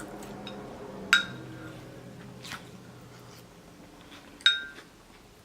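A metal spoon clinking against a ceramic dish twice, with a short ring each time, about a second in and again near the end, with a few fainter taps between.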